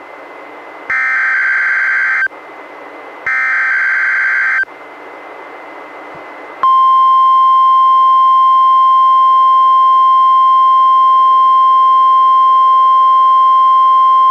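NOAA Weather Radio emergency alert signals during a Required Weekly Test. First come two short buzzing SAME digital header bursts, about a second and a half apart, with receiver hiss between them. Then, about six and a half seconds in, the loud, steady 1050 Hz warning alarm tone starts.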